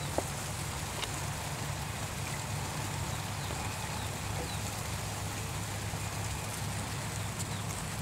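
Steady outdoor background noise beside a lotus pond: an even hiss over a low hum, with a few faint ticks and one sharp click shortly after the start.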